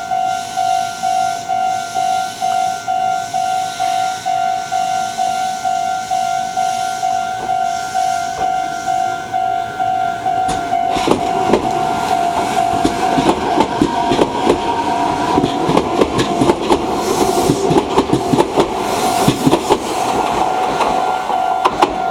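Railway level-crossing warning bell ringing, a steady repeating ding about two strokes a second. About halfway through, a Meitetsu 4000 series electric train passes over the crossing, its wheels clattering over the rail joints with a whine from the train, while the bell keeps ringing.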